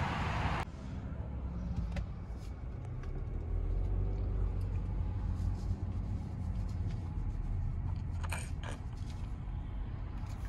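Low, steady road and engine rumble inside a car's cabin while driving, with a few faint clicks about two seconds in and again near the end. Under a second in, a hiss of outdoor noise cuts off abruptly.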